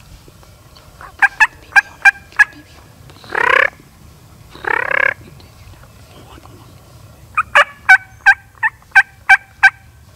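Wild turkey tom gobbling twice, with a run of short, sharp turkey yelps before the gobbles and another run near the end.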